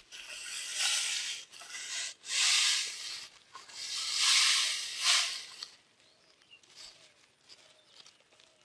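Rustling and scraping: about five brushing swishes in the first six seconds, then only a few faint ticks.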